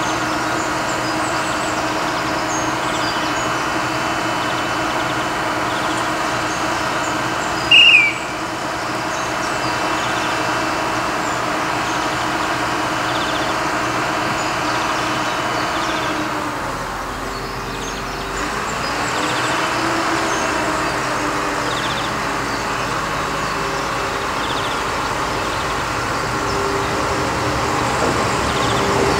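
Diesel engine of an X 74500-series metre-gauge railcar idling steadily at a station, with one short, loud, high-pitched sound about eight seconds in. Past the halfway point the engine note drops, then rises as the railcar pulls away.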